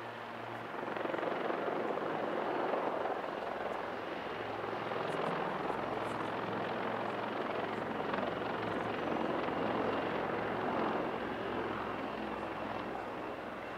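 A pair of Royal Navy AgustaWestland Wildcat HMA.2 helicopters flying by, with a steady noise from their rotors and twin turboshaft engines. The noise swells about a second in, eases a little, then swells again.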